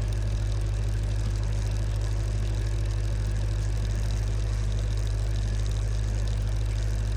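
A motor running with a steady, unchanging low hum.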